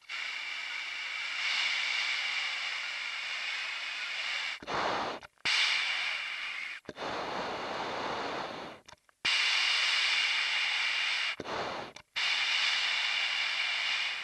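Breathing through an MBU-12 oxygen mask: long hissing breaths of about two to four seconds each, with a steady whistling tone in the hiss, and two shorter, deeper breaths between them.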